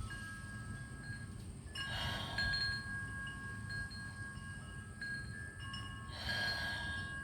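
Wind chimes ringing, several steady tones at different pitches sounding and overlapping, with two brief rushes of noise about two seconds in and about six seconds in.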